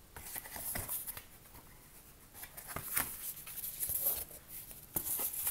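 Large sheets of paper card being handled and shuffled: irregular rustling with sharp taps and flaps as the sheets rub and knock against each other.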